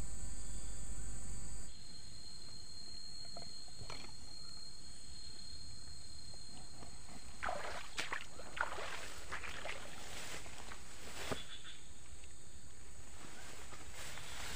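Footsteps and legs brushing through tall grass and undergrowth, a cluster of soft rustles in the middle, over steady outdoor background noise.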